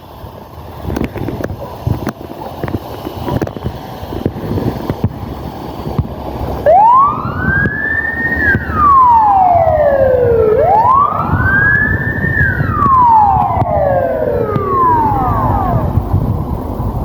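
Emergency vehicle's electronic wail siren: two slow cycles, each rising and then falling in pitch, starting about six and a half seconds in. Before and under it there is a low rumble with scattered knocks.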